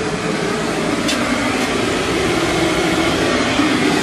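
Steady whir of a running fan motor, with a light tick about a second in.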